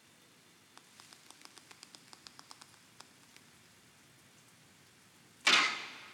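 Kyudo bow (yumi) loosing an arrow: one sudden sharp snap of the bowstring about five and a half seconds in, dying away over half a second. Before it, a run of faint ticks, about four a second, for a couple of seconds.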